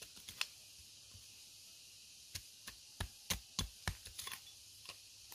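Short wooden-handled blade stabbing and scraping into soil: a single strike about half a second in, then a quick run of about a dozen strikes in the middle.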